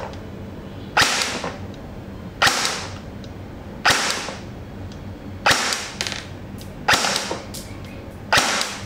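SilverBack PP19-2 Bizon-2 airsoft electric gun (version 3 gearbox) firing single shots of 0.25 g BBs, six in all, evenly spaced about one and a half seconds apart. Each shot is a sharp crack with a short fading tail.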